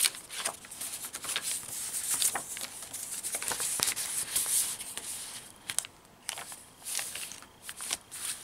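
Paper and card stock rustling and sliding as tags and cards are drawn from journal page pockets and a page is turned, with a sharp tap at the very start and a few light clicks later.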